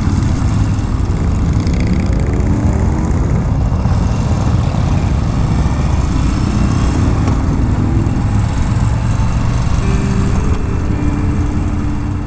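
Yamaha Bolt's air-cooled V-twin engine running at road speed, heard from the bike itself, its pitch climbing a few times as it accelerates, with wind rushing over the microphone.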